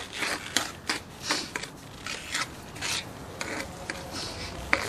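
Irregular scraping and rubbing strokes on slate tile, about two or three a second, from grout being worked and wiped off the tile surface.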